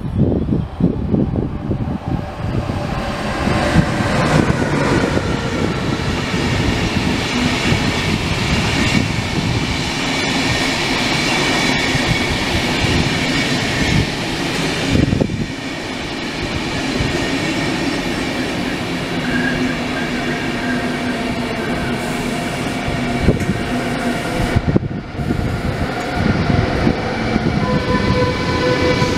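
Passenger train of Swiss SBB coaches rolling past close by, its wheels running and clattering on the rails, with a thin high squeal over the rolling noise.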